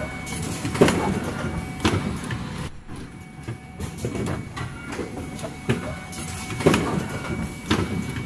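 Automatic cup-mask production line running: the stations cycling with repeated clacks and thumps over a steady machine hum, and a short, loud burst a little under 3 s in.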